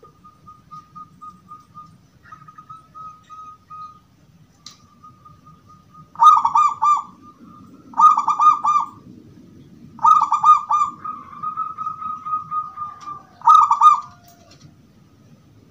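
Zebra dove (perkutut) singing: four loud cooing phrases, each a quick run of clear notes, the first about six seconds in and the last near the end. A faint, steady high trill runs beneath during the first four seconds and again before the last phrase.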